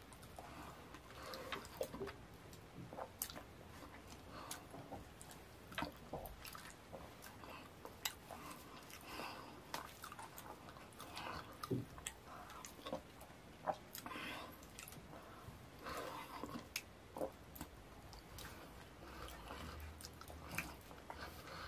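Close-miked wet mouth sounds of a person eating fufu with ogbono soup by hand: chewing and lip-smacking, with irregular sharp smacks and clicks.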